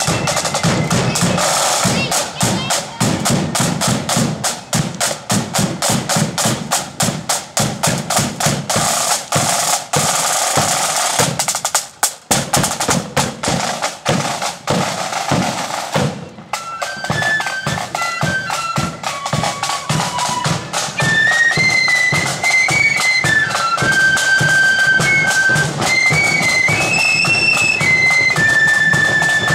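Blood-and-thunder flute band on the march: snare and bass drums beat a rapid marching rhythm, then after a short break about 16 seconds in, the flutes strike up a high, bright melody over the drums.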